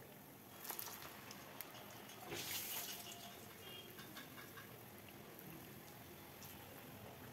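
Medu vadas deep-frying in hot oil, a faint, steady sizzle and crackle. About two and a half seconds in it swells into a louder burst of sizzling as fresh batter goes into the oil.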